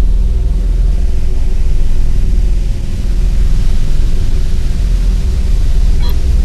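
Designed sci-fi spaceship engine drone: a deep, steady rumble with a constant low hum and hiss, like a reactor running inside a large spacecraft. A couple of faint electronic blips come near the end.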